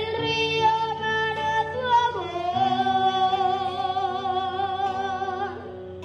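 A young boy singing into a microphone: a phrase that steps down about two seconds in to a long held note with vibrato, which ends shortly before the end.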